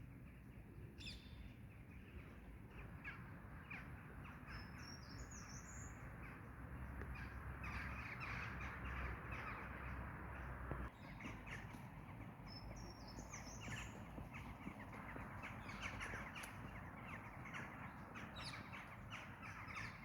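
Birds calling outdoors: repeated harsh calls, with short higher chirping phrases about five and thirteen seconds in, over a steady low background noise.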